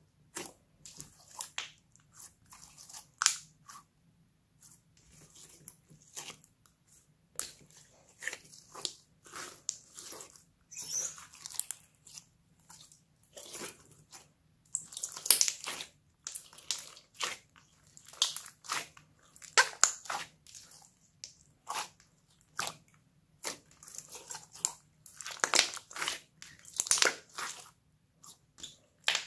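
Hands kneading, pressing and folding a large glossy slime, giving a string of irregular wet clicks and squishes, some of them sharp and loud.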